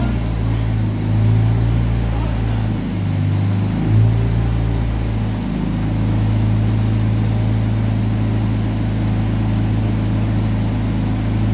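Large forklift running with a steady low drone that wavers for the first few seconds, then holds even.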